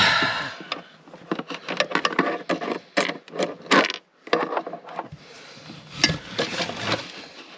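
Hand-tool handling noise: irregular clicks, taps and scrapes of scissors and fingers against plywood and cables while reaching for a small part that has dropped out of reach.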